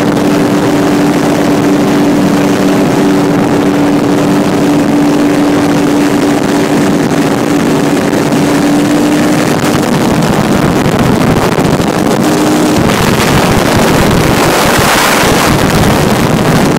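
Ultralight trike's engine running at a steady pitch under heavy wind rush on the microphone. About ten seconds in the engine's hum fades and the wind rush takes over, swelling loudest near the end.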